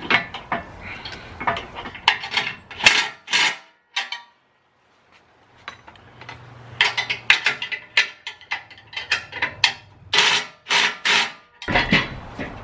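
A cordless impact driver run in a series of short hammering bursts, tightening the bolts of a spare-tire carrier mount, with a short silent break midway.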